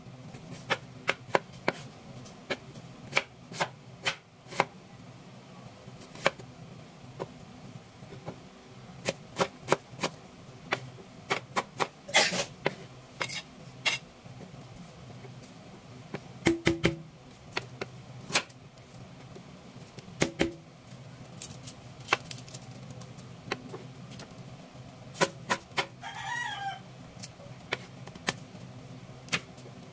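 Kitchen knife chopping ginger and garlic on a wooden cutting board: irregular sharp knocks, some single and some in quick runs, with pauses between.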